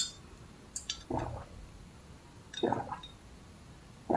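Close-up sipping of a drink through a straw: sharp wet mouth-and-straw clicks, each followed by a gulp, two swallows about a second and a half apart.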